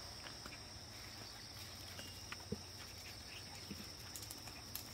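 Faint steady high-pitched insect chorus, typical of crickets, with a few soft clicks and scuffs.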